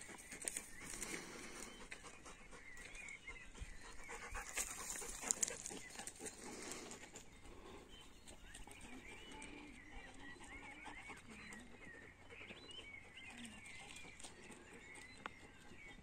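Faint outdoor ambience of small birds chirping. A rustling noise with scattered clicks runs through the first several seconds.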